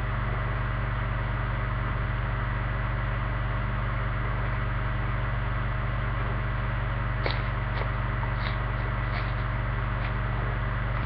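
Steady low hum with hiss at an even level, and a handful of faint, short clicks in the second half.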